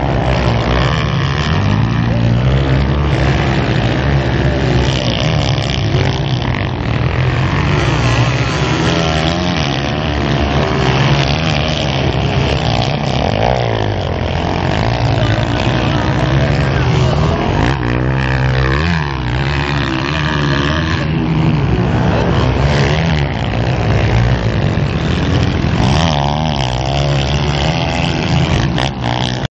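Several motocross dirt bikes racing past, their engines revving up and falling off again and again as riders accelerate, shift and back off over the track.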